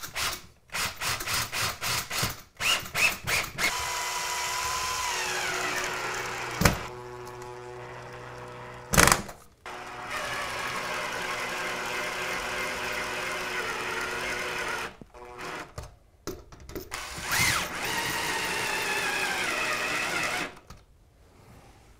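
Cordless drill-driver driving fixing screws through a TV wall bracket into the wall. It runs in short stuttering bursts, then in three longer steady runs whose whine drops in pitch as the motor slows near the end of each run, with two sharp knocks in between.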